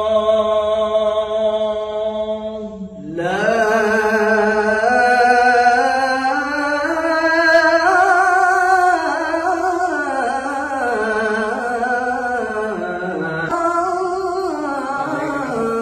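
Unaccompanied male voice chanting: a steady held note, then from about three seconds in an ornamented melodic line that climbs from low to high pitch and slowly falls back, rising through the scale from low to high.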